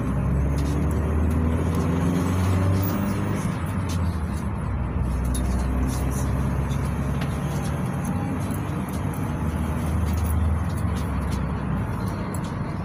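GAZelle Next minibus driving on a city road, heard from inside the passenger cabin: a low, steady drone from its Evotech 2.7-litre four-cylinder petrol engine, with tyre and road noise.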